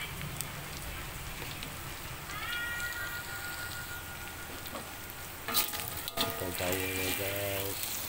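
Snails frying in oil in a metal wok, a steady sizzle. About five and a half seconds in, a spatula starts stirring, scraping and knocking against the wok. A few short cat-like calls sound in the background.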